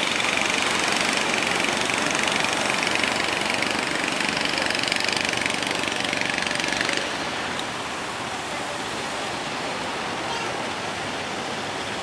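Fishing boats' engines running amid a loud rush of surf and wind noise. The sound drops in level suddenly about seven seconds in.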